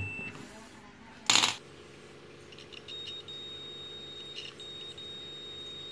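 A single short metallic clink about a second and a half in, as a multimeter probe tip is moved onto a potentiometer's solder lug. Under it there is a faint steady high tone and hum.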